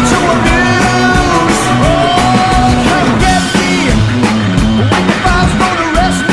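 Rock music with a steady drum beat and a repeating bass line.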